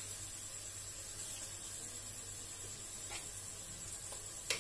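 Faint, steady sizzle of green chillies and curry leaves frying in oil in a kadhai, with light clicks of a spoon about three seconds in and near the end as salt is scooped and sprinkled in.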